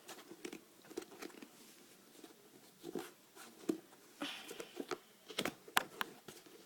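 Faint handling noise of fingers working at a shoe, prying at its pop-up flap: scattered small clicks and taps with a brief rustle about four seconds in and a few sharper clicks a little later.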